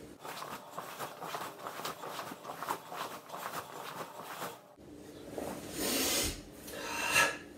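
Karate gi rustling and swishing with repeated shuto (knife-hand) strikes: faint crackle at first, then a few louder swishes in the last few seconds.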